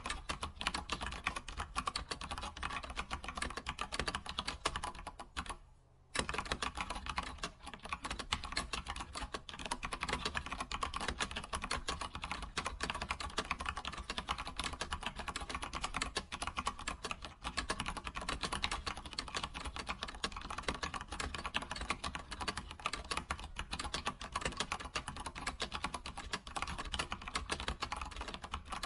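Computer keyboard being typed on steadily, with fast, continuous key clicks and one brief pause about six seconds in.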